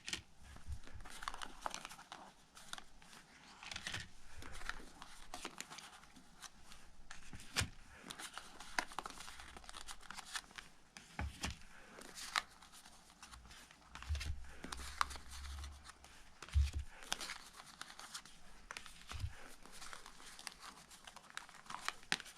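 Lenormand cards being leafed through by hand while one card is searched for: a long run of papery slides, flicks and small clicks.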